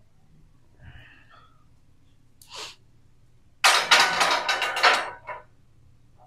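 Empty barbell being set into a power rack's steel J-hooks: a loud metal clatter and rattle lasting about a second and a half, starting past the middle, with a shorter, softer sound about a second before it.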